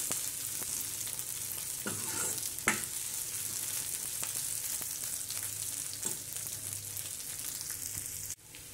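Boiled potato cubes and onions sizzling in hot mustard oil in an aluminium kadhai while a steel ladle stirs them, scraping the pan a few times. The sizzle drops away abruptly near the end.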